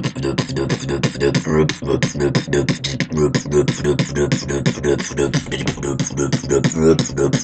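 Beatboxing improvised in a fast tekkno/jump-up style: a dense, unbroken run of sharp mouth clicks and snares over a low pulsing bass made with the voice.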